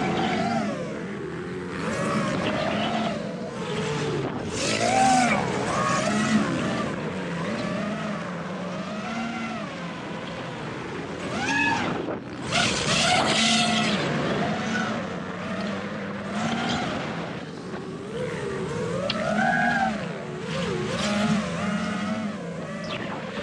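FPV quadcopter's T-Motor F60 Pro motors and propellers whining, the pitch swooping up and down with each throttle change, picked up by the GoPro on the drone along with the engines of motocross bikes on the track. A louder rush of air and motor noise about halfway through.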